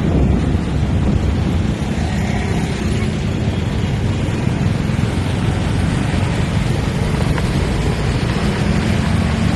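Motorcycle engine running steadily while riding along a town street, a constant low rumble mixed with road and air noise on the microphone.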